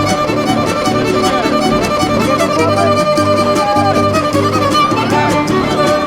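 Background music: a violin-led tune over a steady beat.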